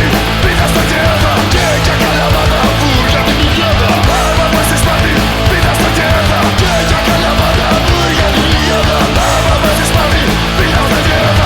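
Punk rock band playing a studio-recorded song, loud and dense without a break.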